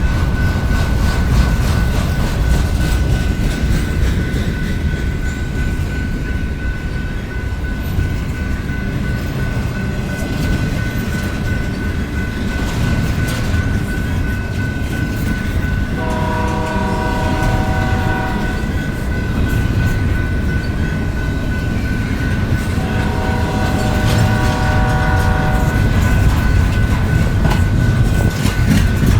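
Canadian Pacific freight train's cars rolling past with a steady low rumble and clickety-clack of the wheels, over a thin steady high whine. The locomotive horn sounds two long chords, the first about 16 seconds in and the second about 23 seconds in, each lasting two to three seconds.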